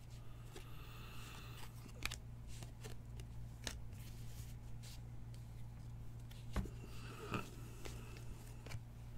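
An air conditioner runs with a steady low hum, under faint rustling and clicks as trading cards and foil pack wrappers are handled.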